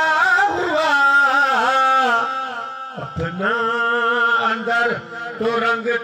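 A man chanting a line of Sufi poetry in a drawn-out melodic voice, holding long wavering notes, with a short break for breath about halfway.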